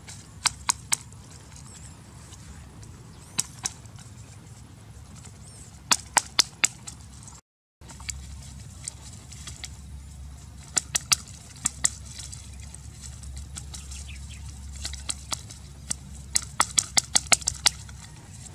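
Crisp clicks and snaps from hands handling leafy twigs and sticks, coming in short clusters of two to six, with a quick run of them near the end, over a steady low rumble of outdoor background noise.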